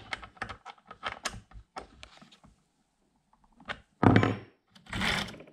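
Metal chainsaw multi-tool socket wrench clicking and scraping against the chainsaw's bar nut as the nut is tightened, in short irregular ticks. About four seconds in comes a loud thunk as the tool is set down on the wooden workbench.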